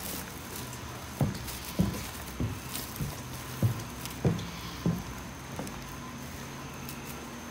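Footsteps of a person walking in shoes, about eight dull steps a little over half a second apart, going up stairs and onto a carpeted floor, with a faint steady hum behind.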